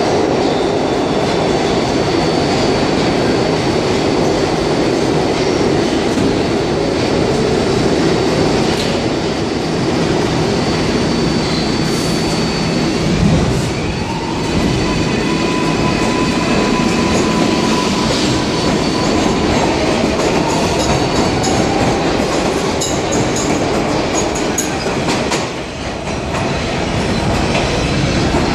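R142A subway train at the platform, shutting its doors with a thump about halfway through and then pulling out of the station. Its wheels clatter and squeal, with a thin motor whine as it gathers speed.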